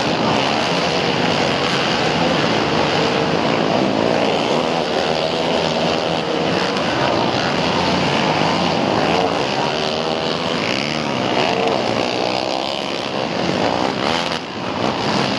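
Several racing ATV (quad) engines revving as they circle a dirt flat track. Their pitch rises and falls as the quads accelerate and back off through the turns.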